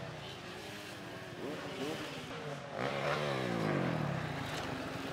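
Motocross dirt bike engines revving up and down as two bikes ride over and down a dirt hill, the pitch rising and falling several times with the throttle.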